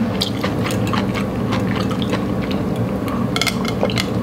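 Close-miked drinking: water sipped and swallowed from a glass, with small clicks of the glass.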